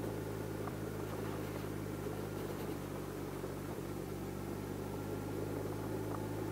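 Kawasaki GTR1400's inline-four engine running at a steady, even hum as the motorcycle rolls along a gravel track.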